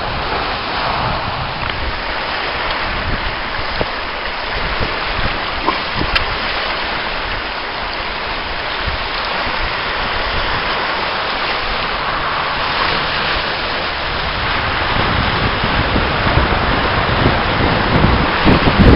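Choppy sea water washing over and breaking against rocks along the shoreline, a steady rushing that grows louder near the end, with wind rumbling on the microphone.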